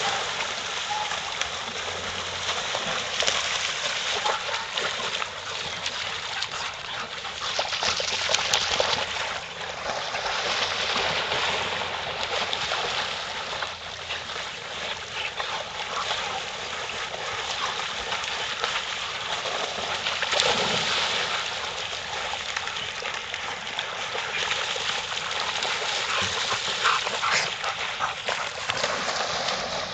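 Water sloshing and splashing steadily as several dogs swim and paddle through a pond.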